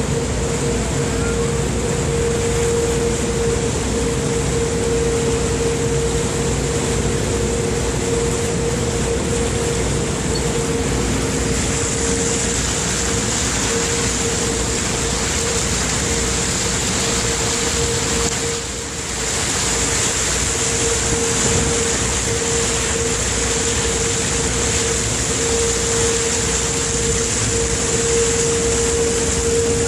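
Steady drone of a river tour boat underway: a constant engine hum with a hiss of water and wind. It dips briefly about two-thirds of the way through.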